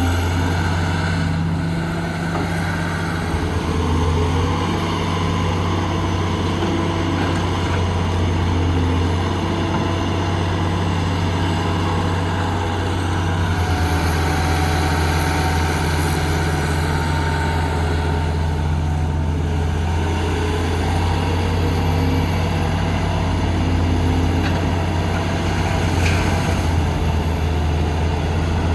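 Diesel engine of heavy earthmoving machinery running steadily, a low, even engine hum.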